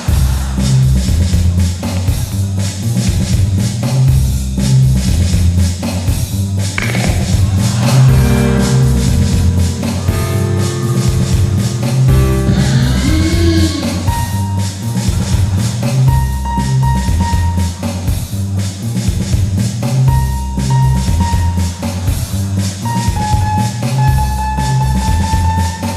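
Band music with a steady drum-kit and bass beat. Partway through, a run of pitched notes and sliding tones comes in, followed by long held high notes.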